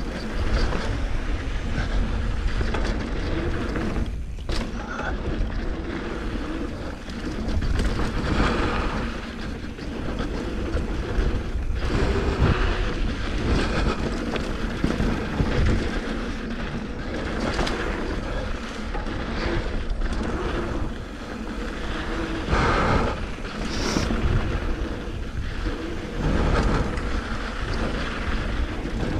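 Mountain bike riding fast down a rough, rocky dirt trail: a continuous rattle and clatter of the bike and its tyres over rocks and loose dirt, with a steady low rumble underneath and irregular sharper knocks from bumps.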